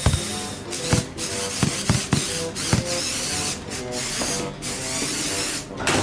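A toy motor's whirring with scattered clicks and knocks, cutting out briefly a few times, as a Lego Technic climbing car strains at an obstacle; the attempt fails. Background music plays underneath.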